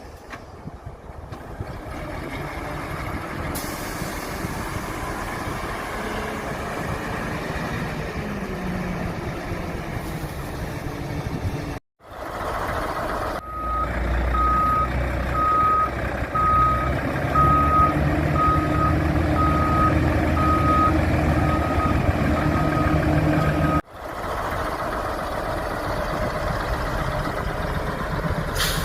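Radio-controlled construction models at work: small electric motors and gears whir, with pitch slides as they work. In the middle stretch, a sound module plays a diesel-truck engine sound with a reversing beeper sounding about once a second.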